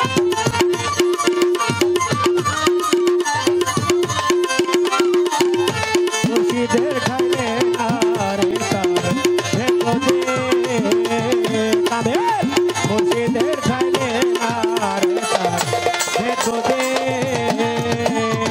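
Live instrumental interlude from a Bangladeshi pala gan folk ensemble: fast hand-drum strokes with a pulsing repeated note and a melody that bends in pitch over them.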